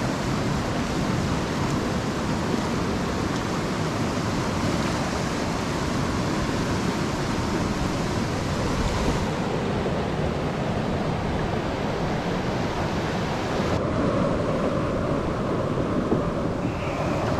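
River rapids rushing over bedrock ledges and around boulders, a steady rush of white water.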